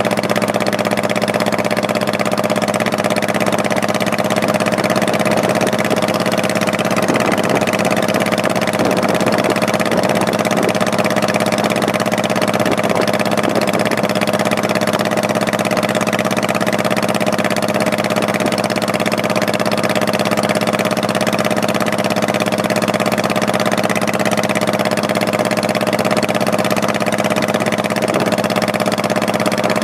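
Honda Shadow Spirit 1100's V-twin engine running at a steady pitch, with no revving or gear changes.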